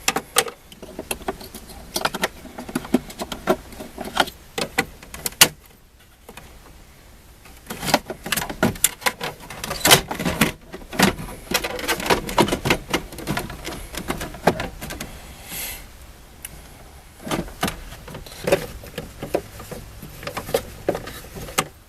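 Irregular clinks, clicks and knocks of small metal parts being handled and tried in place, coming in clusters with a brief lull about six seconds in.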